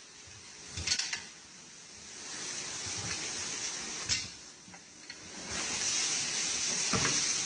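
Knocks and scrapes of a dual truck wheel being pulled off its hub studs and rolled by hand, over a steady hiss that grows louder about five and a half seconds in.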